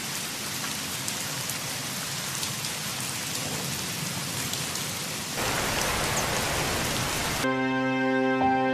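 Steady rain sound effect that grows heavier about five seconds in, then cuts off suddenly near the end as soft background music begins.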